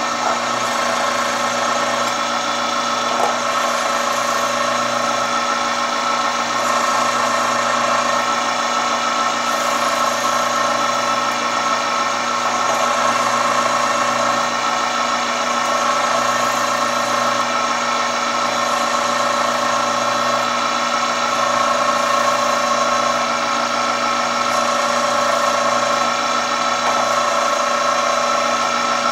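Chef's Choice Diamond Hone 100 electric knife sharpener running with a steady motor hum and whine while a dull knife blade is drawn through its diamond-abrasive sharpening stage.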